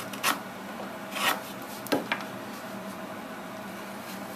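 Wooden marking gauge's pin scratching a line into the end of a board, in a few short scraping strokes over the first two seconds or so.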